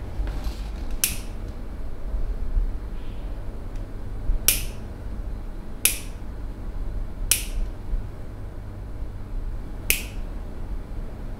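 Five sharp snaps from hands at work in a massage, spaced irregularly one to two and a half seconds apart, over a low steady hum.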